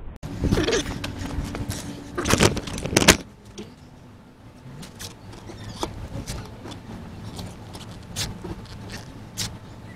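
Hands handling and fitting trim on a van's bodywork: rustling and clattering for about three seconds, then scattered light clicks and taps.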